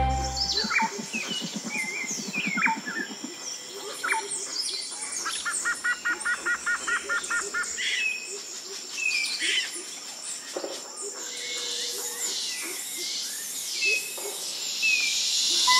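Woodland birds calling and chirping, with short whistles and glides from several birds. Midway, one bird repeats a quick note about four times a second for roughly three seconds.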